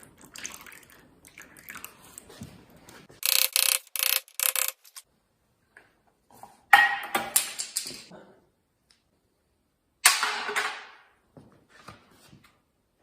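Metal clanks and rattles from hand tools and parts on a transmission: four short ringing bursts a few seconds in, then two sharp metal knocks that ring and fade, one about halfway through and one near the end.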